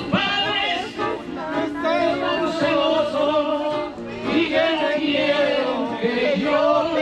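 Tenor singing a Spanish-language ballad into a microphone, holding long notes, with two acoustic guitars accompanying.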